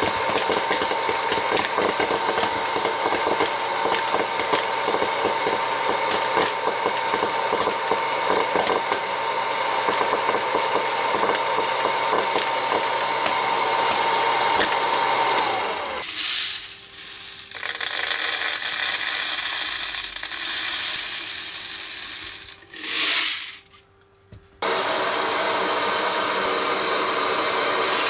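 Wear-Ever Popcorn Pumper hot air popper running: a steady fan-motor hum with kernels popping in rapid, dense clicks. About halfway through, the motor hum stops with a slight drop in pitch, and uneven noise with two brief gaps follows.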